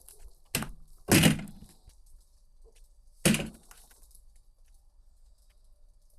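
Firewood being handled: three sharp wooden cracks and knocks, the second the loudest with a short ring-out, as branches or logs are snapped or dropped.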